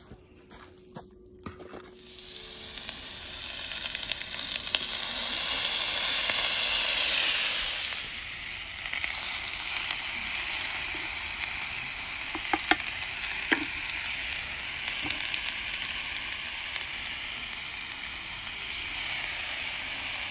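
Peppers and onions sizzling on a hot cast iron griddle. The sizzle starts about two seconds in, is loudest for several seconds, then settles to a steady sizzle with a few sharp pops.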